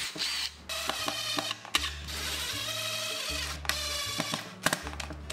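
Cordless DeWalt drill driving screws into plywood, its motor whining in spurts that rise and fall in pitch, with a few sharp clicks, over background music with a stepping bass line.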